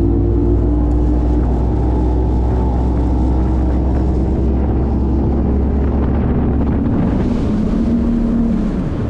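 Bass boat's outboard motor running at speed, with wind buffeting the microphone. The engine note eases off near the end.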